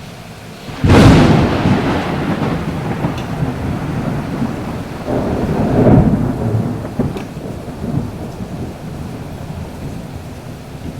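A thunderclap with a sudden crack about a second in, rolling on and swelling again around six seconds before fading, over steady rain.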